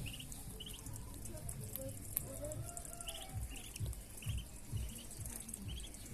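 Baby poultry chicks peeping: short high peeps repeating about twice a second. Behind them, a steady hiss with fine ticking from rain.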